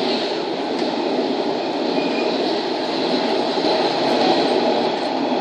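Child's plastic push tricycle rolling over ceramic floor tiles: a steady rolling noise from its hard plastic wheels.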